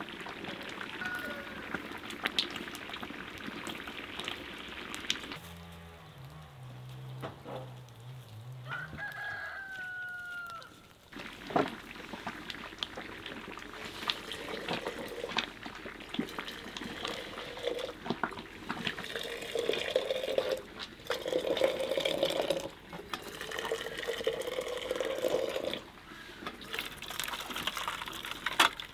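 Water poured from a kettle into glass jars and over metal jar lids and a funnel in a basin, with a rooster crowing once about nine seconds in.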